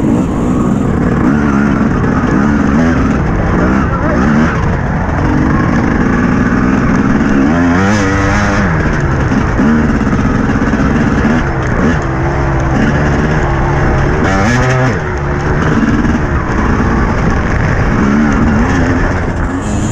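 TM 250 dirt bike engine revving up and down as it is ridden, its pitch rising and falling again and again, heard from the rider's helmet camera with wind and rough noise mixed in.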